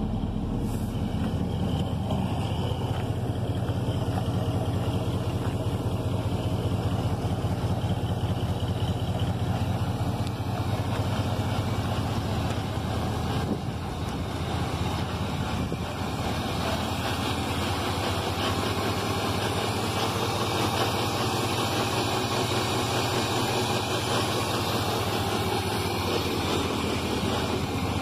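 Chevrolet Silverado 3/4-ton pickup's engine idling steadily, an engine the owner thinks is blown.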